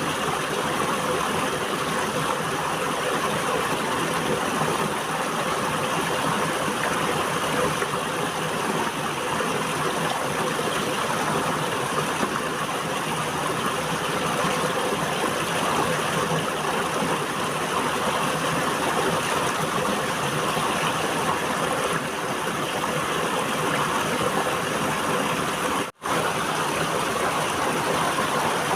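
River water flowing in a steady, continuous rush. Near the end the sound cuts out for a split second and comes straight back.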